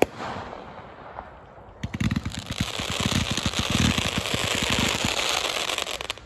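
Consumer firework cake firing. A sharp report at the start, then from about two seconds in a dense, fast crackle of many small pops over a hiss, lasting about four seconds.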